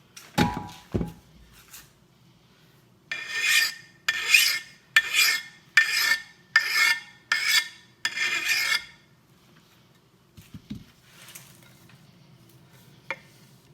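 A hand file rasping across the steel edge of an axe bit in about seven strokes over some six seconds, working the burr back and forth. Two dull knocks come in the first second.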